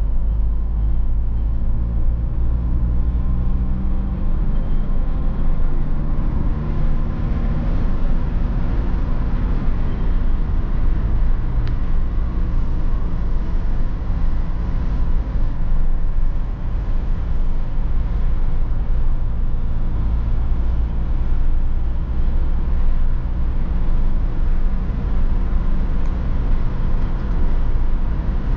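Interior noise of a BMW E46 320d on the move: the 2.0-litre four-cylinder turbodiesel drones steadily under a heavy low road and tyre rumble.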